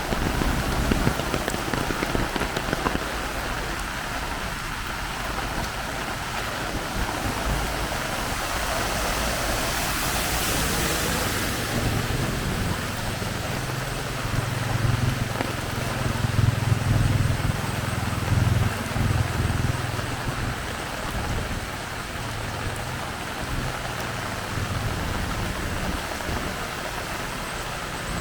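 Heavy rain falling steadily, an even hiss of rain on the ground. About halfway through, a low rumble swells for several seconds and then fades.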